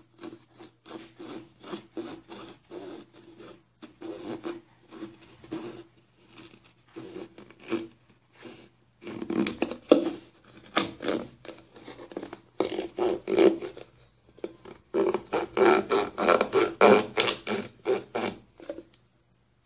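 Small serrated knife sawing through a plastic soap bottle to cut off its neck: quick back-and-forth strokes in spells with short pauses, louder in the second half.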